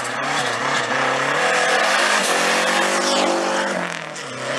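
Hatchback race car's engine running hard at high revs while it accelerates through a cone slalom. The engine note rises and falls with throttle and gear changes, and sags briefly about four seconds in before climbing again.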